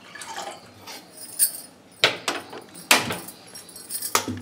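Water pouring into a stainless steel pot, then stainless steel tumblers clinking and knocking several times with a short metallic ring.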